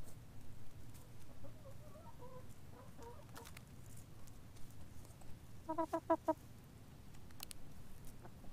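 Backyard hens (Barred Plymouth Rock and Golden Comet) clucking quietly while foraging: a few soft, wavering low murmurs, then a quick run of about five short clucks about two-thirds of the way in. Scattered light ticks from beaks pecking the ground close by.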